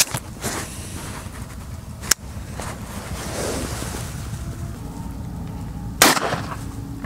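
A single 9mm pistol shot from a P-08 Luger-pattern pistol about six seconds in: a sharp crack with a short echoing tail. Two smaller sharp clicks come before it, near the start and about two seconds in.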